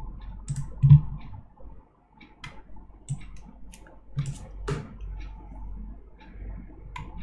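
Computer mouse clicking several times at irregular intervals, with a few soft low thuds and a low steady hum underneath.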